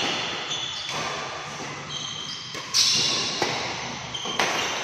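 Badminton rackets striking a shuttlecock back and forth in a doubles rally: several sharp hits, the loudest nearly three seconds in, each echoing in a large hall.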